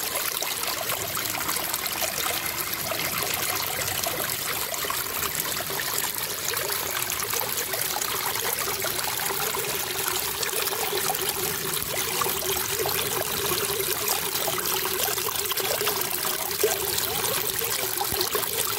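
Water from a small cascade pouring over rocks and splashing into a shallow pool, a steady unbroken rush.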